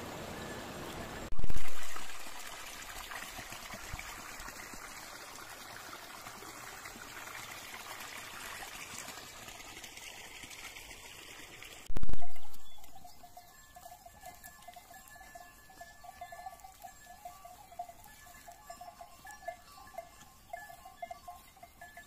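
Water running in a stone irrigation channel, then the faint ringing of bells on a grazing sheep flock. Two sudden loud thumps, about a second and a half in and again about twelve seconds in, each dying away over about a second.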